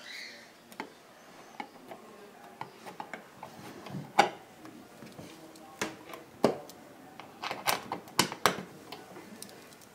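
Irregular sharp clicks and knocks, a dozen or so, as of small hard objects being handled and set down; the loudest comes about four seconds in, and several follow in quick succession near the end.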